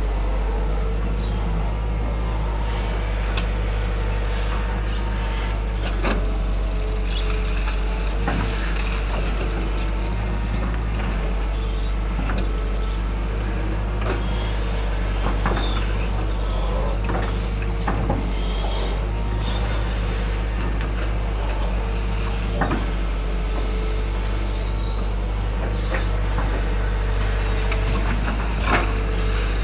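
Hydraulic excavator working a ditch: its diesel engine hums steadily under a constant hydraulic whine, with scattered sharp knocks from the digging gear.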